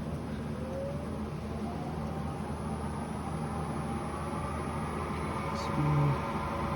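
Lathe motor running steadily, spinning a bicycle hub bearing cone as it is polished with sandpaper; its whine rises slightly in pitch over the first few seconds.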